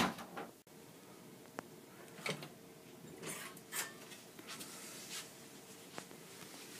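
Quiet room with a faint steady hum and a few short, soft knocks and rustles as a bedroom door is opened and someone steps into the room.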